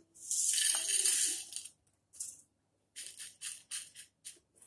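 Crisp, oil-drained fried potato bhujia strands tipped from a wire-mesh strainer into a bowl, a dry rustling rattle lasting about a second and a half, followed by a brief rustle and then a run of short rustles as fingers stir the strands in the bowl.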